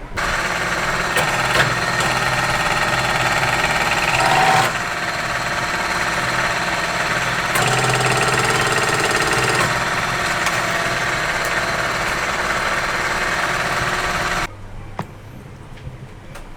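A machine running loudly with a steady hum and whine, starting suddenly, changing tone twice, and cutting off abruptly near the end.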